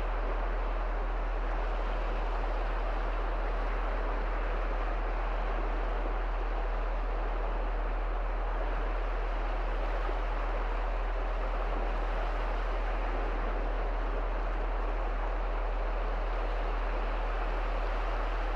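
Small sea waves breaking and washing up the shallow sandy shore, a steady rushing hiss with wind, over a constant low rumble.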